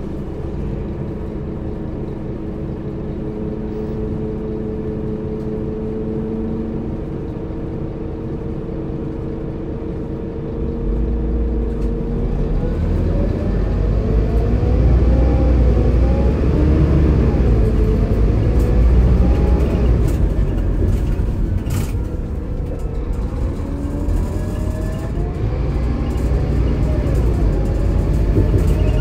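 Scania K280IB coach's Scania DC9 diesel engine with its ZF Ecomat II automatic gearbox, running steadily at first, then louder and heavier from about ten seconds in as it takes load and accelerates. The engine note and the gearbox whine rise and drop in pitch several times as the gearbox changes gear.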